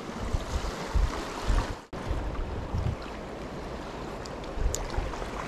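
Sea waves washing against shore rocks, with wind buffeting the microphone in low thumps. The sound cuts out for a moment just under two seconds in.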